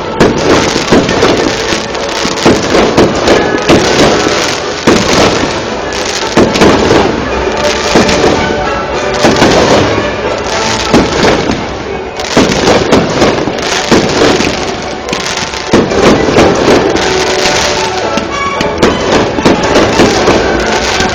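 Fireworks display: a dense, continuous run of bangs and crackling bursts, several a second.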